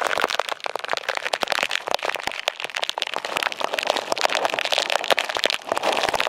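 Heavy downpour: a steady hiss of rain with dense, rapid crackling pops from raindrops striking close to the microphone.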